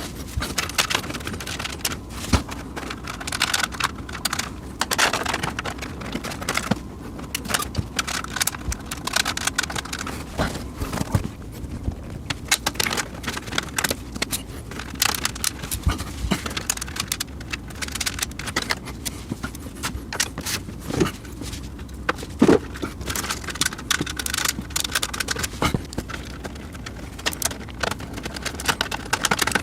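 Irregular clicks, knocks and scrapes of hands handling a PC case and an intake fan during fitting, with a couple of sharper knocks a little past two-thirds of the way through.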